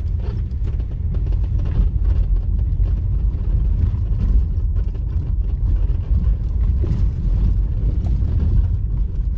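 Steady low rumble of a moving vehicle travelling along a road, engine and tyre noise with some buffeting on the microphone.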